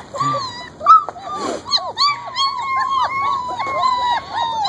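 Several four-week-old German Shepherd puppies whimpering and yelping: short, high cries that rise and fall, overlapping one another and coming thick and fast from about two seconds in.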